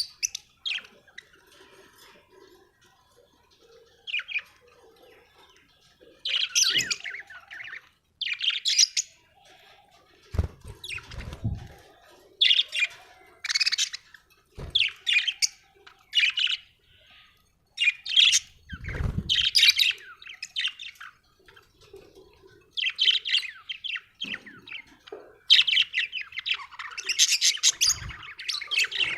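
Budgerigars chirping and warbling in short high bursts, growing busier and more continuous near the end. A few dull low thumps are heard in between.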